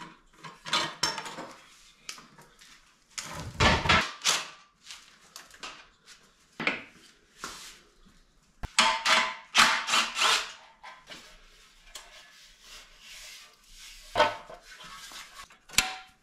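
Hand tools, bolts and metal parts clinking, knocking and rubbing in irregular bursts as the seat of a Honda Z50 minibike is unbolted and lifted off. The loudest is a heavy knock with a deep thud about three to four seconds in.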